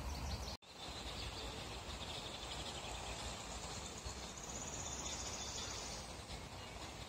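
Summer meadow ambience: high-pitched chirping and chirring, with a rapid buzzy trill from about four to six seconds in, over low steady background noise. A brief dropout about half a second in, where the recording cuts.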